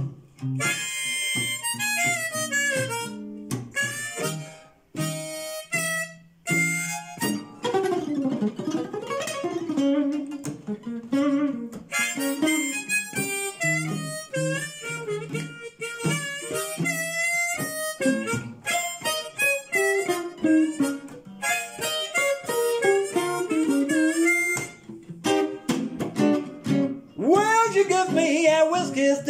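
Blues harmonica solo on a harp held in a neck rack, full of bent, wavering notes, over picked archtop guitar accompaniment in a slow blues.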